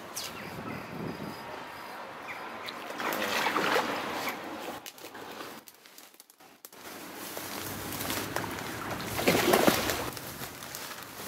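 Water splashing as a hooked pike thrashes at the surface. There are two surges of splashing, the louder about nine to ten seconds in.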